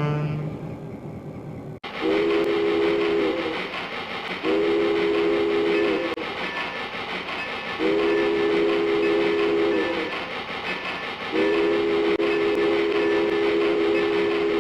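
A train sounding a multi-note chime horn in four blasts, each longer than the one before, over the steady running noise of the train. The last blast is the longest. Just before, a single-note horn fades out and the sound cuts abruptly.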